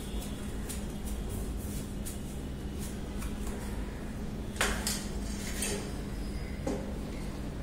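Metal satellite-dish mount parts clinking as they are handled and fitted together, with one louder clank about halfway through and two lighter knocks after it, over a steady low hum.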